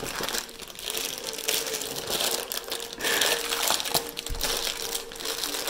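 Gift packaging crinkling and rustling as it is handled and opened, a dense run of small crackles.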